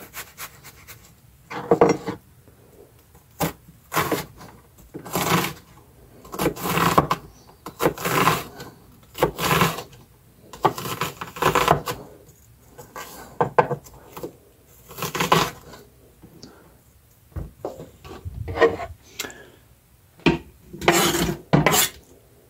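A kitchen knife cutting through a yellow onion onto a plastic cutting board, one stroke every second or two, each cut ending in a knock on the board. The blade is one the cook thinks needs sharpening.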